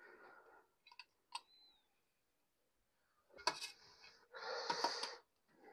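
Half-boiled rice being spooned into a biryani pot over the mutton layer: a few light clicks, then two scraping, rustling scoops about three and a half and four and a half seconds in, the second longer.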